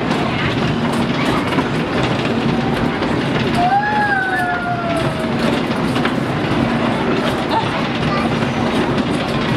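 Cars of a kiddie amusement ride rattling along their track with a steady clatter and a faint hum, with a brief high squeal about four seconds in and voices in the background.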